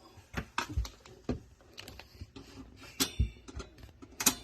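Small parts being handled and worked loose inside a refrigerator's freezer compartment: about ten irregular sharp clicks and light knocks.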